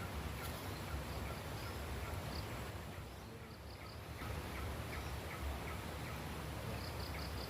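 Outdoor ambience with quick, high bird chirps in short groups of three or four over a low rumbling background.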